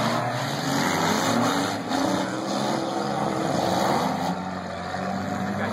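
Demolition derby car engines running and revving in the arena, their pitch rising and falling over a steady dense rumble.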